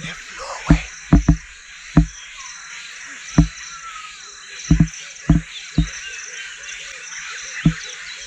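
Footsteps on a field path, about ten uneven thuds, over a steady chorus of frogs and insects with some warbling calls.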